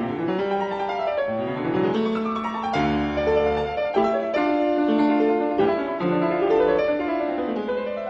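Instrumental background music: a piano playing quick runs of notes up and down.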